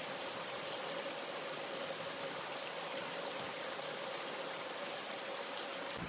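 Mountain stream water running steadily over rocks, a continuous even rush.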